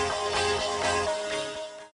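Background music with a steady beat and held notes, fading out near the end.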